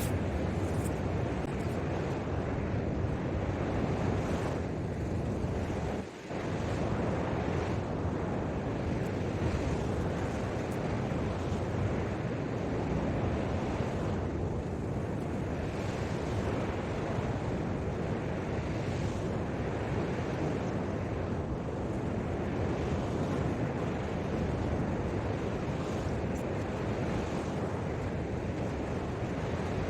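Surf washing on a sandy beach, a steady rushing sound with wind buffeting the microphone, broken by a brief drop about six seconds in.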